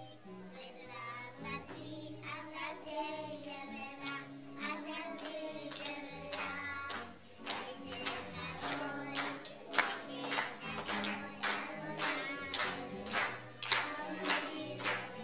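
Children and adults singing a song together over instrumental accompaniment with a stepping bass line. Hand claps on the beat, about two a second, come in strongly from about halfway through.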